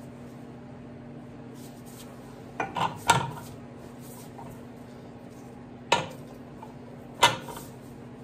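Sharp metal-on-metal clinks from steel tools and parts being handled during machine setup: three quick clinks about three seconds in, then single clinks near six and seven seconds, each ringing briefly. A steady low electrical hum runs underneath.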